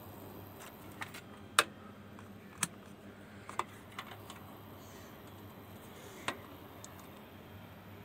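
Scattered sharp clicks and taps from multimeter test probes and tools being handled against a circuit board's connector, about six in all, the loudest about one and a half seconds in, over a faint steady low hum.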